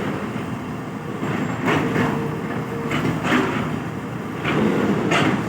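Excavator's diesel engine running steadily, with short noisy bursts of clatter every second or so as the machine works.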